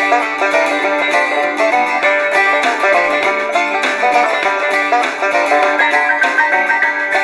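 Music from an FM station playing through the Tecsun PL-398BT portable radio's small built-in speakers. It sounds thin, with no deep bass.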